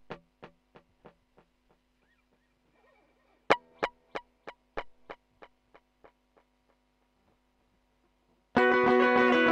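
Clean electric guitar (Fender Stratocaster) through a compressor and two stacked digital delays, a TC Electronic Flashback in 2290 mode and a Strymon DIG: single picked notes each trail off in rhythmic echoes about three a second that die away, one note fading out early on and a second struck about three and a half seconds in. Near the end a loud, sustained guitar part comes in.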